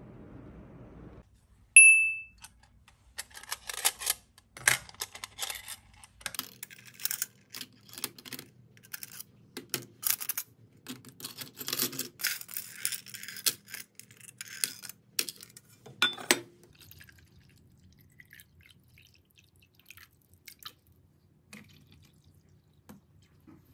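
A single short electronic beep about two seconds in, then metal nail tools clinking and rattling against a plastic tray as they are picked up and set in one by one, with a sharper click about sixteen seconds in.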